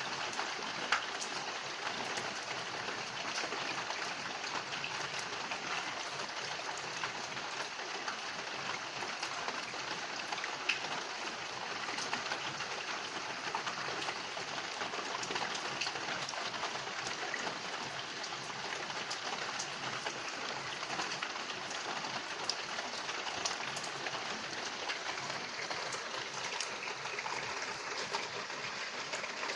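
Steady rain falling: an even hiss with many single drops ticking through it, and a few louder drop hits.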